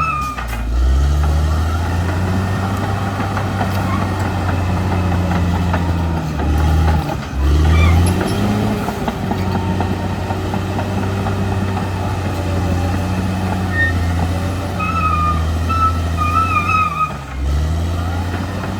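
Caterpillar D6R XL bulldozer's diesel engine running steadily under load. Its pitch dips and recovers three times. Short, wavering high squeals come near the start and again a few seconds before the end.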